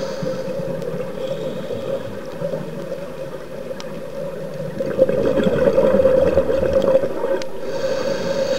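Underwater sound from a scuba diver's camera: the diver's regulator breathing, a high hiss on the inhale near the start and again near the end, and bubbling exhaust about five to seven seconds in, over a steady low hum.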